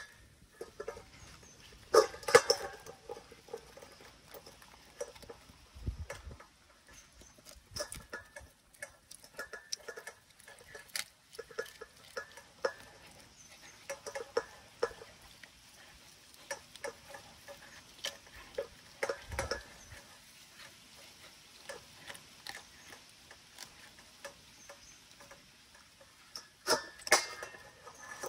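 German Shepherd puppy eating chicken from a stainless steel bowl: irregular chewing, licking and crackling, with clicks of teeth and food against the steel. It is louder about two seconds in and again near the end.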